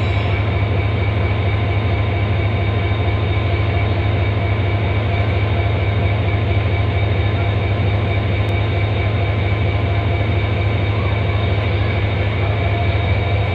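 Train's diesel engine running steadily: a loud, even low hum with a faint steady whine above it.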